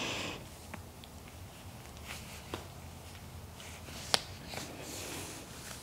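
Quiet rustling of a cotton sock being pulled up over a foot and leg, with a short breath at the start and a few small clicks, the sharpest about four seconds in.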